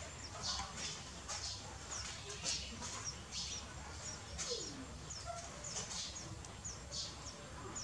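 Small birds chirping in many short, high notes, one after another at an uneven pace, with a single lower falling call about four and a half seconds in.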